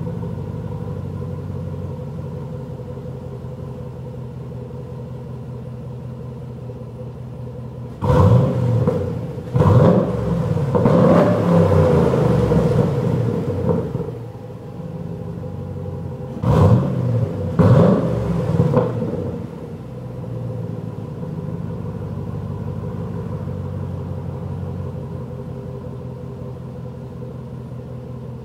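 Chevy Trailblazer SS's LS2 V8 idling through a straight-piped exhaust with the muffler replaced by a 3" pipe. About a third of the way in it is revved in a few quick blips and a longer rev held for several seconds, then blipped twice more, settling back to a steady idle each time.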